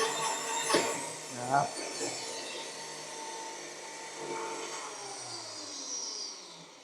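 Magnetic core drilling machine with a standard HSS core drill in steel plate: the grinding cut gives a sharp knock about a second in and a brief squeal, then the motor winds down, its pitch falling as the sound fades.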